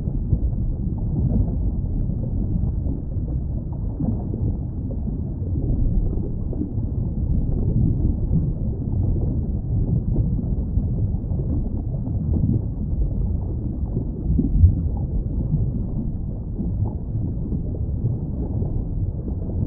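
Underwater ambience: a steady, muffled low rumble of moving water with no distinct events.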